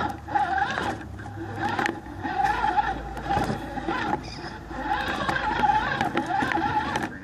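RC rock crawler's electric drive motor and gearbox whining, the pitch wavering up and down with the throttle, heard from a camera mounted on the truck, with scattered clicks and knocks as the tyres climb over rocks.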